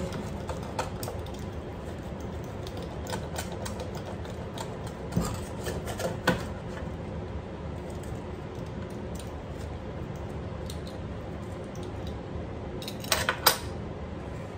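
Pizza cutter wheel clicking and scraping against a metal baking tray as a slice of naan pizza is cut and prised up, with a few sharp knocks, and a cluster of louder clatters near the end as the cutter is laid down on the tray.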